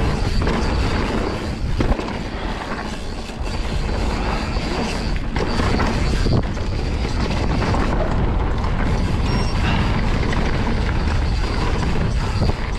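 Mountain bike descending a dirt singletrack at speed: a steady low wind rush on the camera microphone, tyres rolling over dirt and rocks, and the bike rattling, with sharp clunks over bumps several times.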